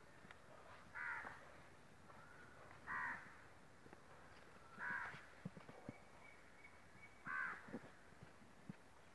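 Four short animal calls, about two seconds apart, each under half a second long.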